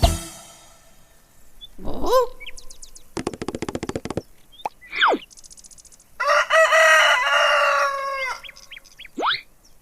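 Chickens calling: short sliding calls and a quick run of clucks, then a rooster crows once for about two seconds, about six seconds in.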